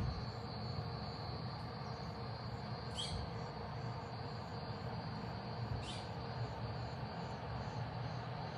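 A steady, high-pitched outdoor insect chorus over a low rumble, with two short falling whistle-like calls about three and six seconds in.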